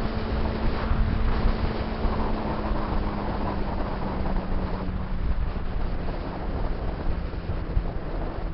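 Honda CBR600RR's inline-four engine running steadily at cruising speed, under heavy wind noise on the camera microphone. The engine note drops a little about three seconds in.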